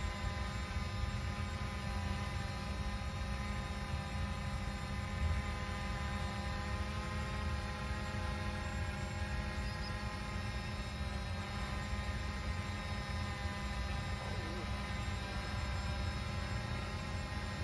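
Quadcopter drone in flight overhead: a steady, many-toned propeller hum, with a low rumble underneath.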